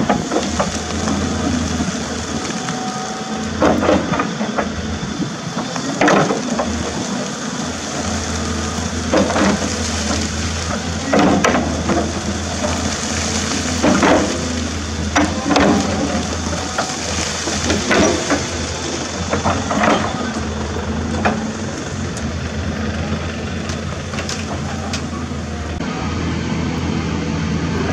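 CAT 320D hydraulic excavator's diesel engine running steadily while its steel bucket digs into rocky soil, with a loud scraping knock of the bucket on rock about every two seconds. The knocking stops after about twenty seconds and the engine keeps running.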